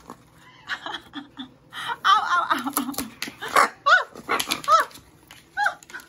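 Hyacinth macaw's beak clicking and scraping at the lid of a plastic peanut jar, mixed with several short animal calls that rise and fall in pitch.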